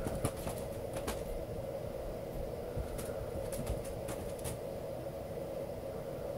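Light clicks and taps from kittens playing at a cat door, clustered near the start and again in the middle, over a steady background hum.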